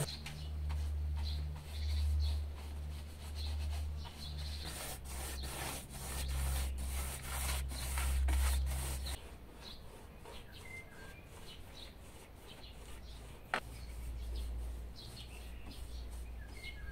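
Paintbrush bristles stroking paint onto a wooden window frame: a repeated scratchy rubbing. A low rumble swells and fades under the first half.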